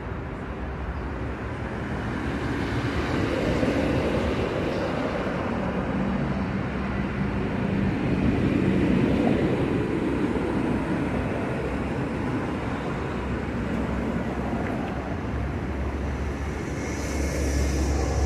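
Street traffic noise: a steady rumble of motor vehicles, swelling and fading as vehicles pass, about three times.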